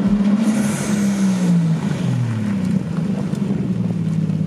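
A car engine running, its pitch rising and then falling over the first two seconds or so before holding steady.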